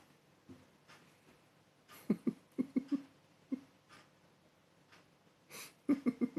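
Sleeping cat snoring: each breath is a short airy hiss followed by a quick fluttering run of low beats, heard twice about four seconds apart.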